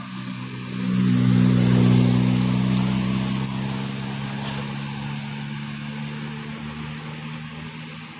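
Tour bus diesel engine running at a steady pitch. It swells loud about a second in, then slowly fades.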